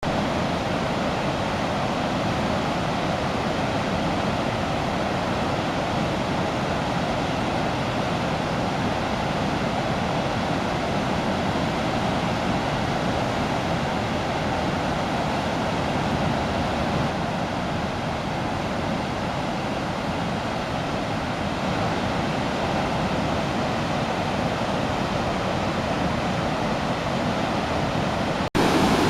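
Sarpsfossen waterfall on the Glomma in heavy flood, far above its normal flow: a steady, unbroken rush of falling water. It breaks off for an instant near the end.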